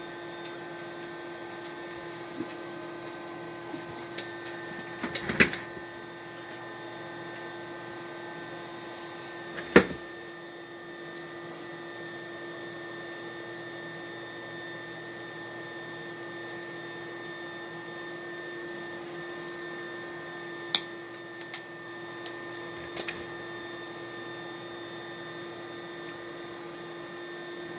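A steady electrical machine hum made of several fixed tones, with a few sharp clicks and knocks: a short cluster about five seconds in, the loudest one about ten seconds in, and two more about 21 and 23 seconds in.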